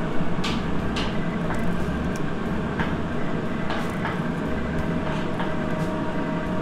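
Steady hum of kitchen machinery with a constant whine, and a handful of short scraping strokes as a paring knife shaves pieces off a carrot.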